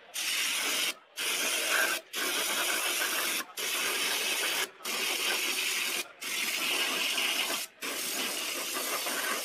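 Spray gun hissing in about seven bursts of a second or so each, with short breaks between, spraying a mist over an engine head gasket.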